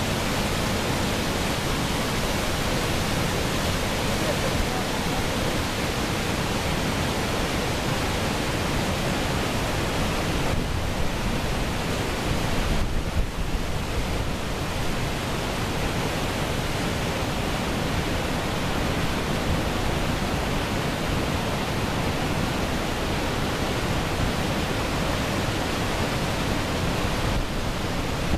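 Heavy torrent of water rushing through open harbour sluice gates, released to scour the channel, a steady, loud churning.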